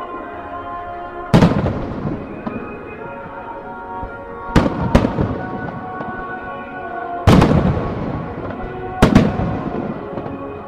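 Aerial firework shells bursting in loud booms, five in about nine seconds, two of them close together in the middle, over music playing on the show's loudspeakers.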